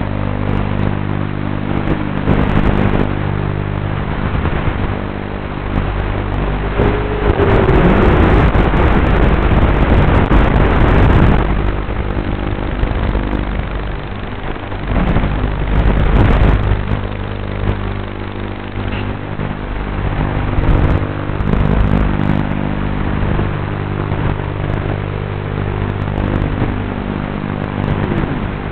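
Lumenier QAV210 racing quadcopter's brushless motors and propellers heard from the craft itself: a steady buzzing drone of motor tones under a rush of propeller wash and wind. It swells louder for several seconds about a third of the way in, and again briefly about halfway, as the throttle is pushed.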